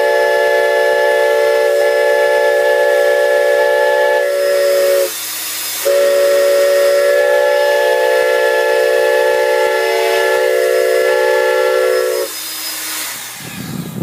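Homemade PVC six-chime whistle, a replica of a Reading steam whistle tuned by ear, sounding a loud chord of several steady pitches with a breathy hiss. It gives two long blasts, the first about five seconds and the second about six, with a short break between. A single lower note lingers briefly after each blast.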